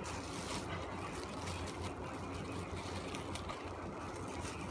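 Steady background hum and hiss, with a few faint light rustles and clicks from the keyboard and its packaging being handled.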